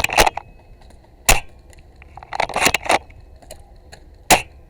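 Airsoft guns firing: single sharp snaps a second or more apart, with a short cluster of clicks and rustling in the middle.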